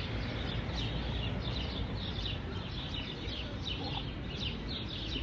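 Small birds chirping in quick, repeated short notes, over a steady low background rumble.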